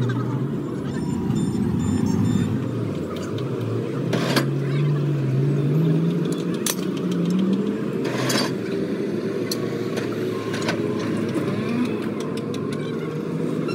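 A motor vehicle's engine running nearby, its pitch rising for a few seconds and then easing off, over a steady traffic hum. Several short sharp knocks, like metal being handled, stand out at intervals.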